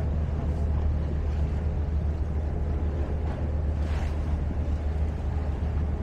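Seaside ambience: waves and water wash over a strong, steady low rumble that does not let up.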